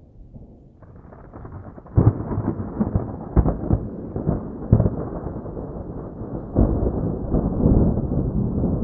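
Thunder: a low distant rumble, then a loud clap about two seconds in followed by several more sharp cracks over a rolling rumble that swells again near the end.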